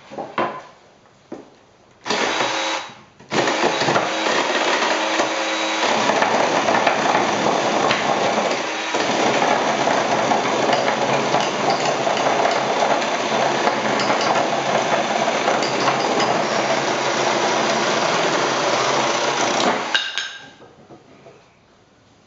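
Ryobi 18V One+ battery chainsaw running: a short burst about two seconds in, then a long steady run of about seventeen seconds that winds down near the end.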